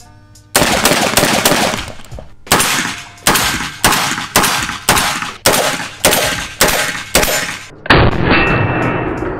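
Genesis Arms Gen 12 semi-automatic 12-gauge shotgun firing a rapid string of shots, about two to three a second, each a sharp blast with a short echoing tail.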